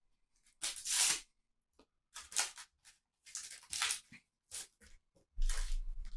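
Panini sticker packets being torn open by hand and the stickers inside rustled through: about five short tearing, rustling bursts, the last one the longest.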